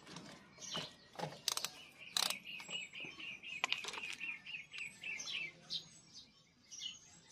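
A small bird chirping in quick runs of short, repeated chirps, with a few sharp clicks from engine parts being handled.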